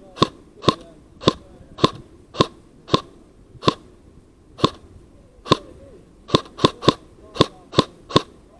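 Airsoft gun firing single semi-automatic shots, each a sharp crack, about two a second, slowing in the middle and quickening into a faster string near the end.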